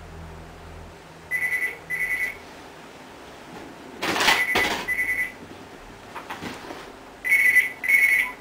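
Mobile phone ringing: three double rings of short warbling electronic beeps, about three seconds apart. A loud rustle of movement comes about four seconds in.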